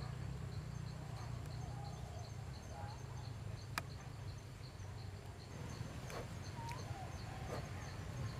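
Forest ambience: an insect chirping in a steady pulse, about four chirps a second, over a low rumble. A sharp click comes about four seconds in, and a few faint short calls sound now and then.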